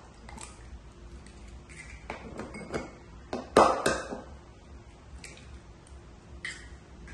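Egg shell tapped and cracked against the rim of a ceramic bowl: a quick cluster of sharp taps about three and a half seconds in, with lighter clinks of shell on the bowl before and after.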